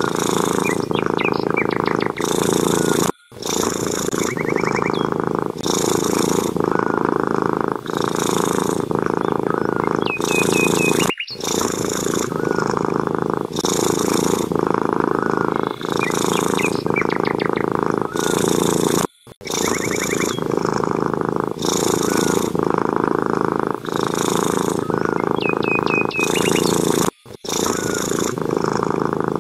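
Domestic cat purring loudly and steadily, the purr swelling and easing with each breath about once a second, with short high chirps over it. The sound cuts out briefly four times, about every eight seconds.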